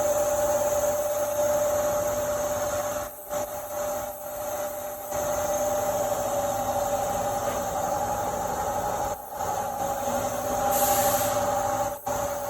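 Bridgeport Hardinge Series I CNC vertical mill running under power, a steady two-tone whine over mechanical noise, with a few brief drops in level and a short high hiss near the end.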